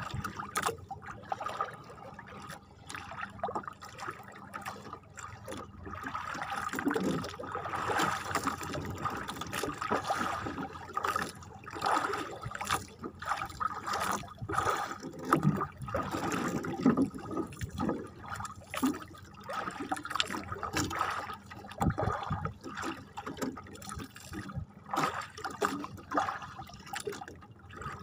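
Sea water sloshing and trickling against the hull of a small outrigger boat, with irregular splashes and knocks.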